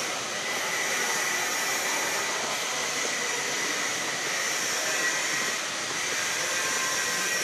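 Steady, even hiss and hum of a large, nearly empty station hall, with faint high steady tones and no distinct events.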